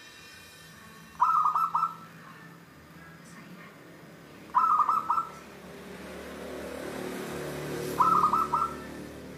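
Caged zebra dove (perkutut) singing: three short phrases of quick, stuttering coos, about three and a half seconds apart. A low background rumble swells in the second half.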